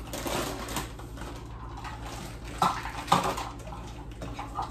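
Spoon scraping and pressing softened butter against a glass mixing bowl, with a few sharp clinks of the utensil on the glass around the middle and near the end.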